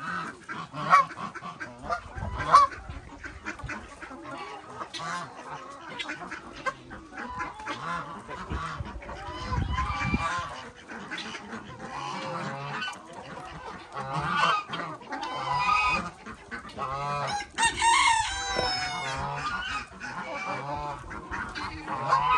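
Domestic geese honking among a mixed flock of farm fowl calling during feeding, with a cluster of louder, rapid honks about three-quarters of the way through.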